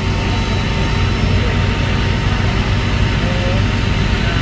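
Backhoe's diesel engine running steadily, with an even low pulsing.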